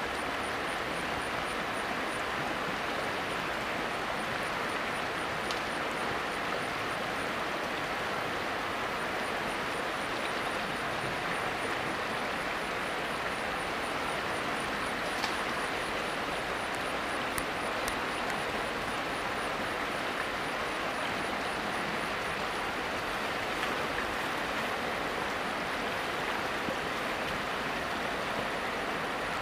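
Steady rushing of a flowing river, with a faint, high, rapid ticking of an insect over it.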